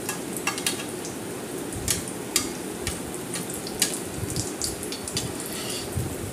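Besan-battered potato pakoras deep-frying in hot oil in a kadhai: a steady sizzle with frequent sharp crackles and pops.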